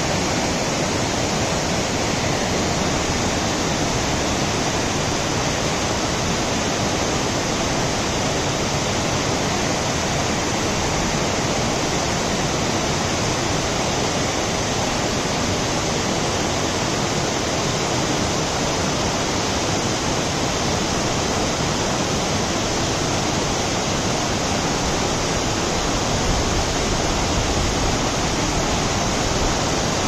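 Cascading waterfall: white water rushing over rock in a steady, unbroken wash of noise.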